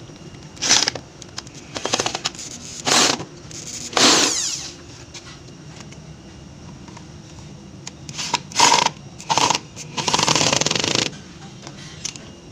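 Power drill driving the screws that fix a toilet bowl to the floor. It runs in short trigger bursts of under a second each, in two groups, and the last run is about a second long.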